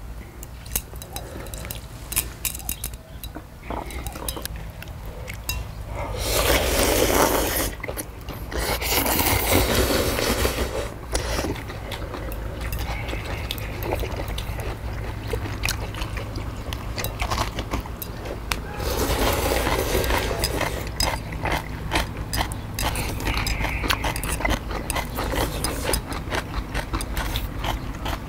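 People slurping jjamppong ramen noodles in three long, loud slurps, about 7, 10 and 20 seconds in. Between them come chewing and frequent short clicks of chopsticks against metal plates.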